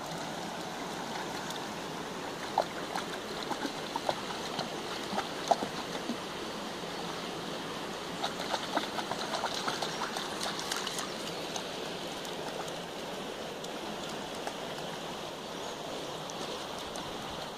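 Shallow stream running steadily over a stony bed, with a puppy's paws splashing as it wades through the water: a few sharp splashes in the first third and a run of smaller ones around the middle.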